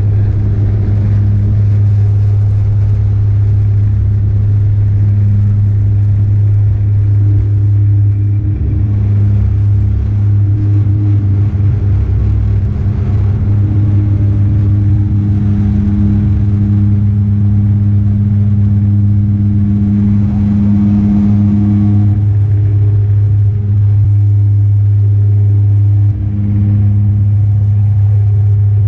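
Bombardier Dash 8 Q400's turboprop engine and propeller at takeoff power, heard from a window seat inside the cabin as the aircraft takes off and climbs. It is a loud, steady drone with a strong low hum.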